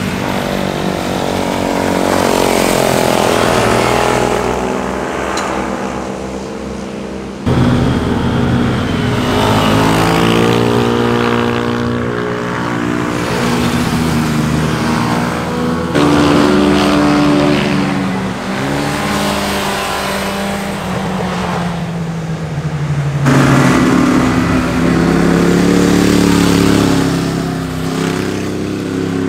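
Motorcycles ridden hard through a bend one after another, each engine revving up and down through the gears as the bike passes. The sound changes abruptly three times as a different bike takes over.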